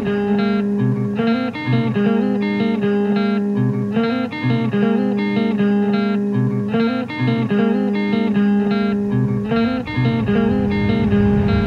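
Instrumental music: a guitar plays a slowly repeating figure of plucked notes over long held low tones.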